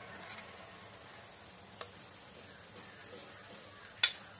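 Oil sizzling softly around paniyaram cooking in a paniyaram pan, with a light tap about two seconds in and a sharp clink of a metal spoon against metal near the end as the paniyaram are lifted out.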